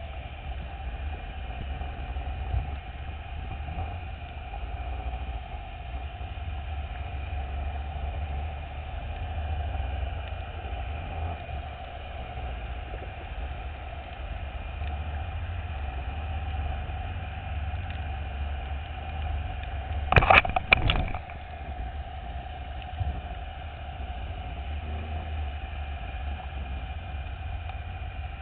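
Steady low rumble and hum of machinery heard underwater. About twenty seconds in, a quick cluster of three or four sharp knocks stands out.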